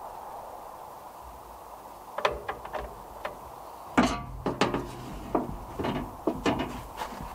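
A run of irregular knocks and clatters of hard objects being handled and set down, as in putting tools and parts away. The loudest knock comes about four seconds in.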